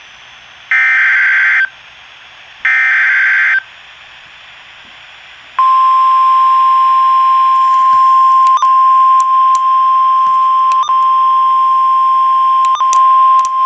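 Emergency Alert System tones from a weather radio broadcast for a river flood warning. First come two harsh, buzzing SAME digital header bursts of about a second each, a second apart. About five and a half seconds in, a steady 1050 Hz NOAA Weather Radio warning alarm tone starts and is held to the end, broken by a few clicks of static.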